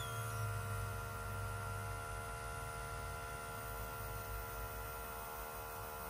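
Outin Nano portable espresso machine's electric pump running with a steady hum as it pushes water through the grounds, at the end of the brew.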